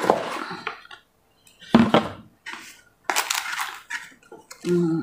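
A rigid cardboard gift box being opened by hand: the lid is pulled off and a paper card lifted out, in a few separate short rustling, scraping bursts. A brief hummed voice sound comes near the end.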